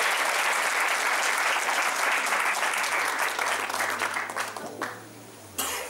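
Audience applauding, the clapping thinning out and dying away after about four and a half seconds.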